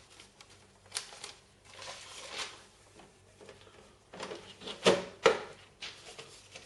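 Handling noises of a cash register's plastic printer cover being fitted back on over the till roll: scattered light clicks and paper rustling, with two sharp clicks a little under half a second apart about five seconds in.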